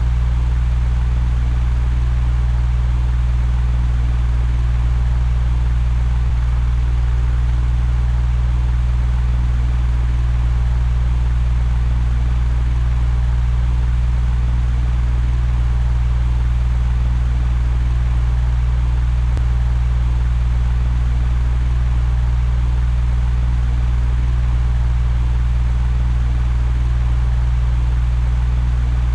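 Electric fan running steadily: a constant low hum under an even rush of air, unchanging throughout.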